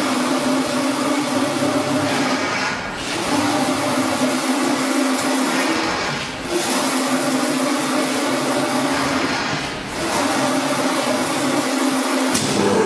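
Digital paperboard printing machine running, a steady mechanical hum and rush of noise that dips briefly about every three and a half seconds in a regular working cycle.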